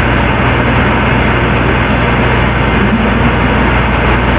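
Steady, loud, muffled rushing noise with a low hum underneath, unchanging throughout: heavily boosted background noise and static of a room recording, with no speech.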